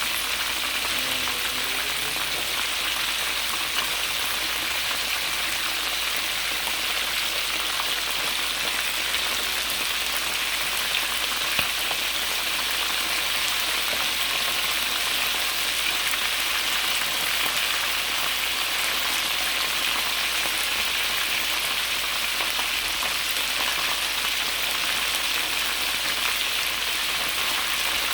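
Chicken frying in hot oil: a steady, dense sizzle.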